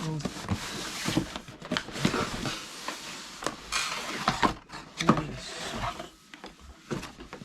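Product packaging being handled and opened: irregular knocks, clicks and rubbing of cardboard and plastic, easing off near the end.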